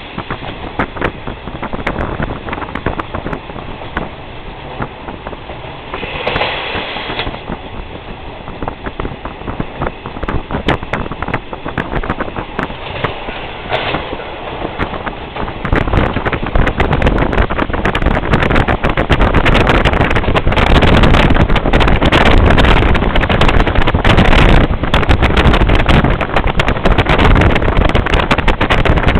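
Inside a KiHa 22-type diesel railcar under way: its DMH17C straight-eight diesel engine running, with the wheels clacking on the rails. About halfway through the sound grows markedly louder and rougher.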